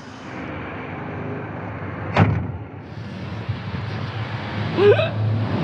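A car door slams shut once, sharply, about two seconds in, over a steady rustle of movement. A short voice-like sound comes near the end.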